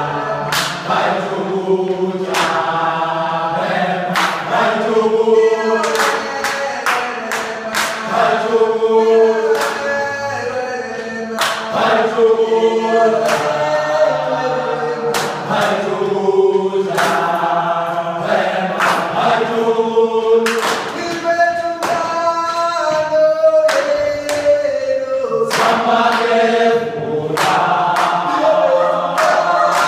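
A group of young football players singing together in chorus, a sustained chant-like song moving from note to note, with frequent sharp hits, claps or stamps, keeping time.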